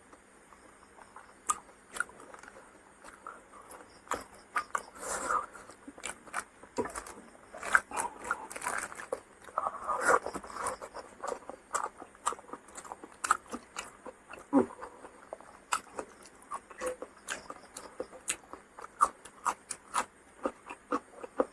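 Close-up eating sounds: a person chewing with open-mouthed smacks, wet clicks and irregular crisp crunches, busiest in the middle.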